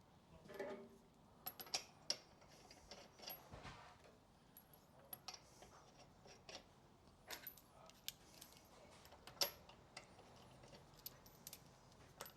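Faint, scattered metallic clinks and taps as wheel nuts are handled and run onto the studs while a car's road wheel is refitted, with one sharper clink a little after halfway.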